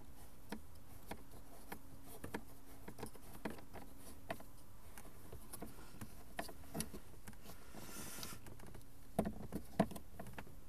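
Scattered small clicks and knocks of a screwdriver working Torx screws and the plastic glovebox trim, with a brief rustle about eight seconds in and two sharper knocks near the end.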